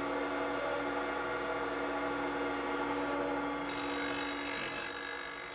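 Bench grinder running with a steady whine; about three and a half seconds in a steel cutter knife is pressed to the wheel, adding a high grinding hiss.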